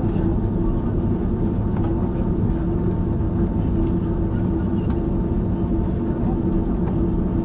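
Steady cabin drone inside an Airbus A330-200 after landing, with a constant hum and a few faint clicks.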